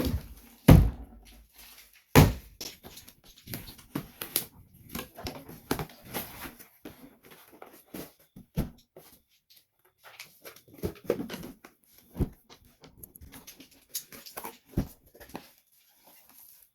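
Irregular knocks, clicks and rustles of objects being handled, with two loud thumps in the first couple of seconds and softer knocks scattered after.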